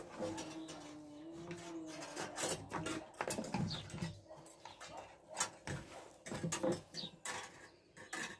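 Hands handling a plastic jerrycan and pushing a black plastic fitting into a hole in its side: irregular hollow plastic knocks, scrapes and clicks.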